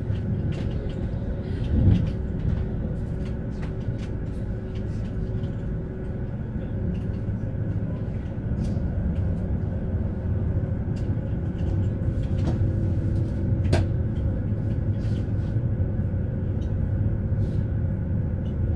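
Steady rumble of a moving vehicle heard from inside, with a faint steady hum and scattered clicks and rattles; a louder knock about two seconds in.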